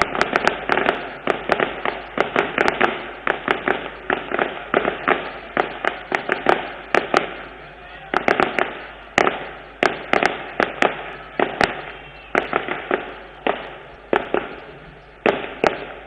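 A string of firecrackers going off in long runs of rapid, sharp cracks, several a second, each with a short echoing decay and brief lulls between clusters.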